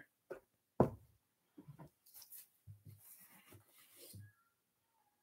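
Faint handling noises as a necklace is hung on a velvet dress-form bust: one sharper knock a little under a second in, then a run of soft thumps with a brief rustle.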